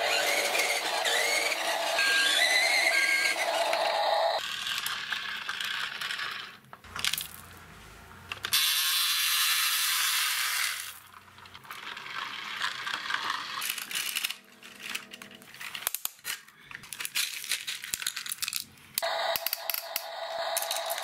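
Small white pebbles pouring out of a tipped toy dump truck bed onto a concrete floor, a rush of rattling for about two seconds near the middle. Scattered clicks of single stones dropping and knocking follow. The first few seconds hold gliding whistle-like tones.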